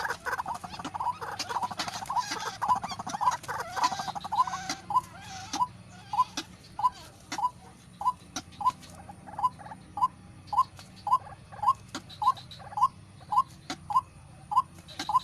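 White-breasted waterhens (ruak-ruak) calling: at first a dense, jumbled burst of overlapping calls, then from about five seconds in a single short call repeated evenly, about twice a second.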